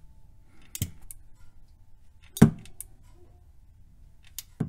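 A few scattered metallic clicks and clunks from a ratchet wrench tightening a transmission drain plug, the loudest about two and a half seconds in.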